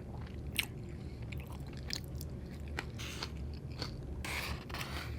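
Close-up mouth sounds of someone eating: chewing and biting, with irregular sharp wet clicks and a few brief crunchy bursts.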